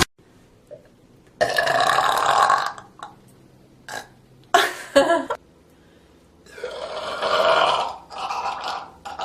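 A person burping: two long, drawn-out burps of about a second and a half each, with a few short belches or gulps between them and another shorter burp near the end.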